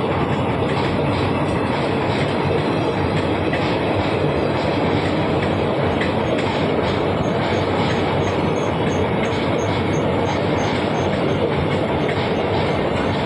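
Indian Railways express passenger train running past at close range: a steady, loud noise of coach wheels on the rails with faint scattered clatter.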